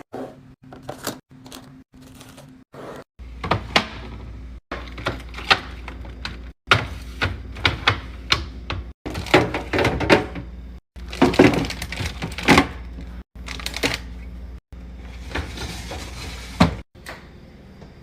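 Clicks, taps and thunks of containers and bottles being set down and arranged in a fridge, in short clips cut together with brief silent gaps between them. A steady low hum runs under most of it after the first few seconds.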